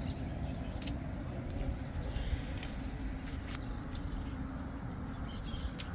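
Wind rumbling on the microphone, with a few scattered sharp clicks and faint bird chirps.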